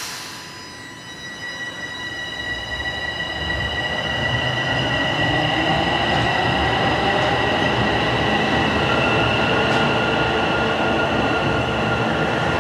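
Toronto Rocket subway train pulling out of the station: a rumble with several steady high whining tones, getting louder over the first five seconds as the train gathers speed, then holding steady.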